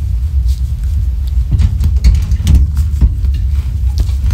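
Steady low rumble with a run of small clicks and knocks from about a second and a half in: handling noise while a hardwired smoke alarm is being worked on to unlink it.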